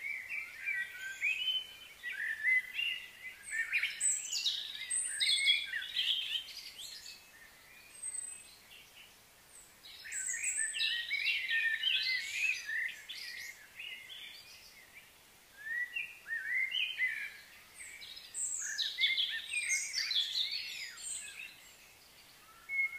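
Birds chirping and chattering in three bursts of several seconds each, with quieter gaps between them.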